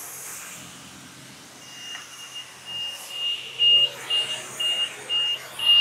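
High-pitched electronic beeping: a single tone that starts faint about a second and a half in, then pulses about three times a second and grows louder.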